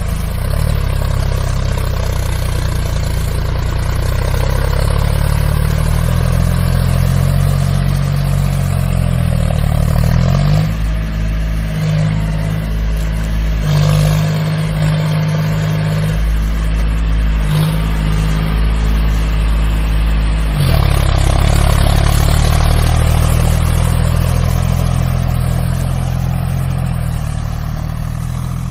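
John Deere 5045 tractor's diesel engine running hard and revving while the tractor is stuck in deep mud and straining to pull free. The engine note rises and falls several times and is loudest about three-quarters of the way through.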